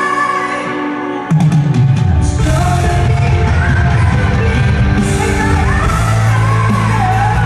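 Live pop music in an arena: a woman singing with her band. The full band, with drums and bass, comes in loudly about a second in.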